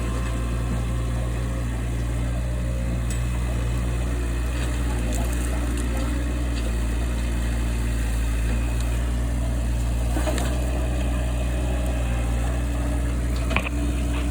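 A large engine running steadily at an even speed, with a couple of short knocks about ten seconds in and near the end.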